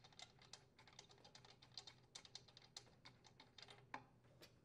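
Faint, irregular small clicks and ticks of a spark plug being unscrewed by hand from a Craftsman chainsaw's cylinder, with a slightly louder click near the end.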